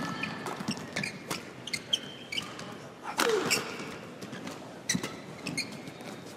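Badminton doubles rally: repeated sharp cracks of rackets striking the shuttlecock, coming irregularly every fraction of a second, with brief high squeaks of court shoes on the floor.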